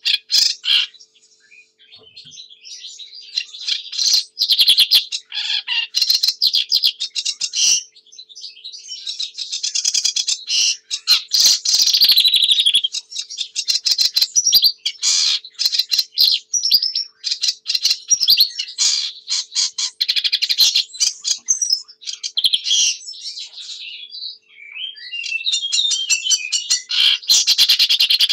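Sedge warbler singing a long, varied song of rapid chattering phrases, broken by short pauses about a second in, around eight seconds in and a few seconds before the end.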